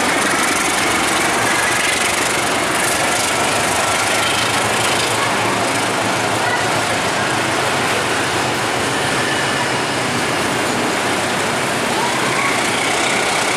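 Container freight train rolling past close by: the loaded flat wagons' wheels rumble and clatter steadily over the rails. A KAI CC206 diesel-electric locomotive heads the train.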